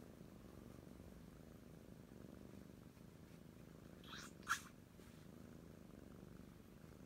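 Oriental Shorthair kitten purring softly and steadily. About four and a half seconds in, a brief, sharp double noise cuts in over it, the loudest thing heard.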